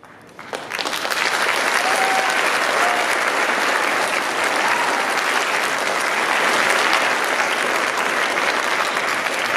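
Audience applause, swelling quickly within the first second and then holding steady.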